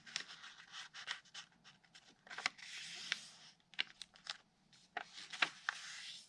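A sheet of paper being folded and creased by hand: rubbing and rustling as fingers press along the fold, with scattered sharp crackles and taps.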